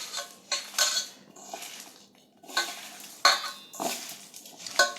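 A utensil clinking and scraping against a dish in irregular strokes while boiled olives are mixed with oil and spices.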